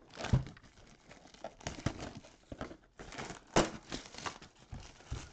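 Plastic shrink wrap crinkling and tearing as a trading-card mega box is unwrapped and opened, in irregular crackles with a few sharper snaps.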